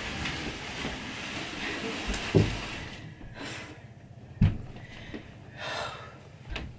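Plastic laundry basket heaped with clothes being carried in and set down: rustling and footsteps, then two heavy thumps, about two and a half and four and a half seconds in. A short breathy exhale follows near the end.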